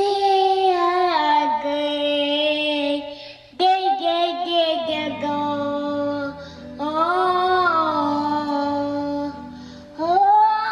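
Toddler singing wordless long held notes into a handheld karaoke microphone, a new phrase starting about every three seconds.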